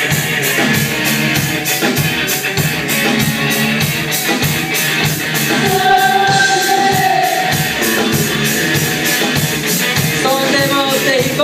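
Live rock band playing loudly: electric guitars and a drum kit keeping a steady, quick beat, with a voice singing over them and holding a long note about six seconds in and again near the end.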